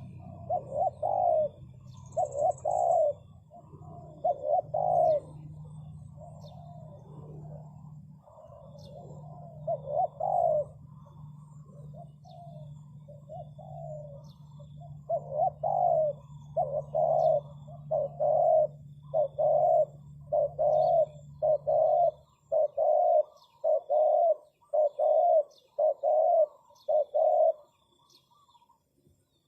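Spotted dove cooing: a long run of repeated coo notes, irregular at first, then coming steadily about once a second in the second half. A low steady hum runs underneath and stops about two-thirds of the way through.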